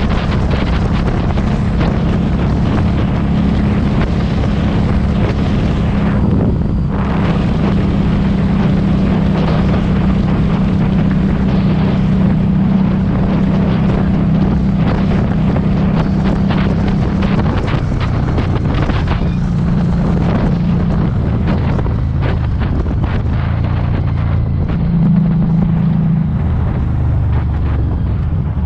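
Harley-Davidson Street 500's V-twin running through a TAB Performance aftermarket exhaust while riding, under heavy wind buffeting on the microphone. The engine note holds steady, drops a little past halfway, and rises again briefly near the end.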